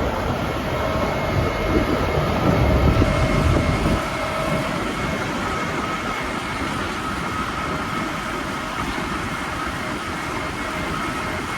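Preet 987 combine harvester running on the road, a steady mechanical drone with a few steady whining tones over it. The low rumble is heavier for the first few seconds, then eases to a steadier, lighter drone.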